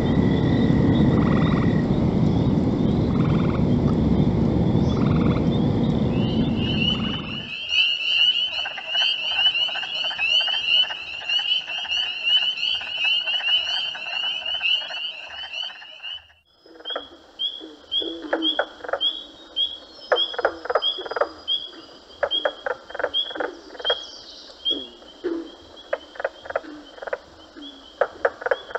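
A played-back nature soundscape. It opens with a loud, low noise, then changes abruptly at about seven seconds to a high, steady trill. After a brief break about halfway through, frogs call in a dense run of quick croaks and clicks.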